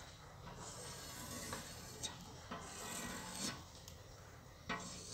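White chalk drawing on a blackboard, tracing a large oval in a few faint strokes with short breaks between them.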